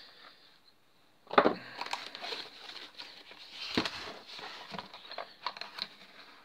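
Cardboard packaging being handled: a sharp knock about a second and a half in, then the rustle and scrape of cardboard sliding, a second knock near four seconds, and scattered light clicks and rustles as the lid comes off the tray.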